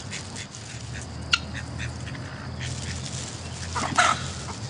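A flock of backyard chickens clucking in short, quick calls as they scramble for bread thrown on the ground, with one louder bird call about four seconds in.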